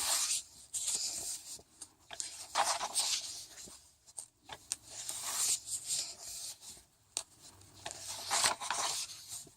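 Paper pages of a softcover workbook being turned and handled, several separate rustles and swishes.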